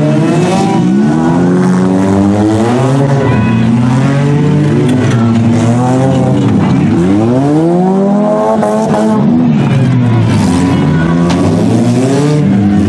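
Several demolition derby cars' engines revving up and down together, their pitches rising and falling and overlapping as the cars accelerate and slow around a dirt track.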